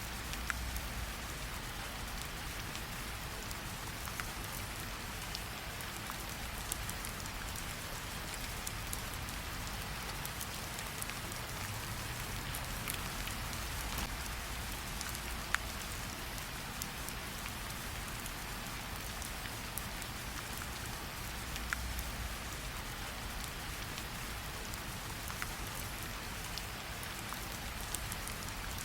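Steady rain falling, with scattered sharp crackles and pops from a campfire.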